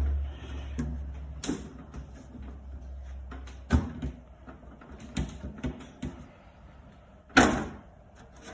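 Clicks and knocks of the screws coming out and the plastic top cover of an atmospheric water generator being handled and lifted off. The loudest knock comes about seven and a half seconds in. A low hum dies away in the first few seconds.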